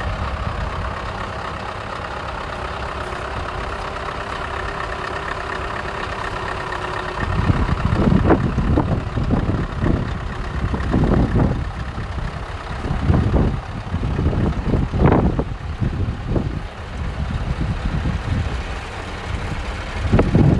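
Scania R500 truck's V8 diesel engine idling steadily. From about seven seconds in, irregular gusts of wind buffeting the microphone come and go over it.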